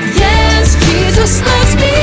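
Upbeat pop-style worship music with singing and a steady beat.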